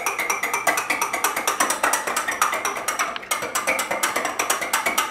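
Wire whisk beating eggs and yolks in a glass bowl: a fast, even run of ticks as the wires strike the glass.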